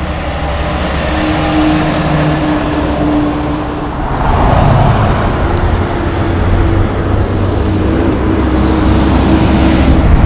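Pickup truck driving on the road: steady engine and tyre noise with a low rumble, getting a little louder from about four seconds in.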